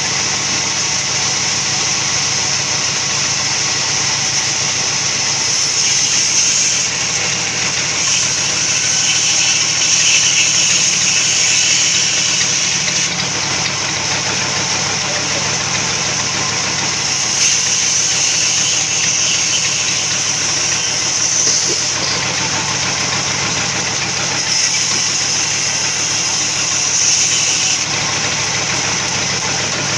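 Sawmill machinery running steadily: a motor drone with a high, hissing whine above it that swells and eases every few seconds.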